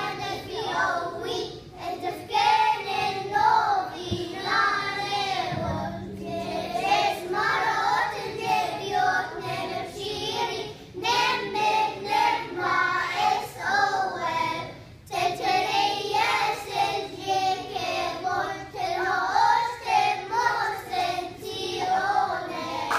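Small children's choir singing a Christmas song together.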